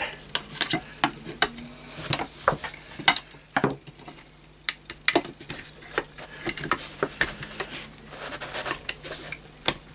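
Scattered small metallic clicks, taps and scrapes as a screwdriver works the steel and brass parts of a vintage Setra pump-up air rifle apart. A part held tight by a new seal is being eased out.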